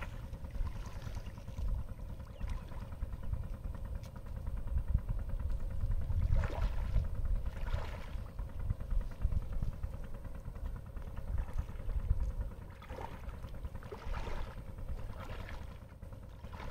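Legs wading through waist-deep river water, with irregular sloshing and splashing over a steady low rumble.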